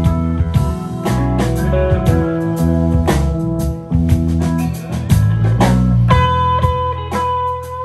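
Live rock band playing an instrumental passage: electric guitar lead over bass and drum kit, the guitar holding one long note from about six seconds in that bends slightly upward near the end.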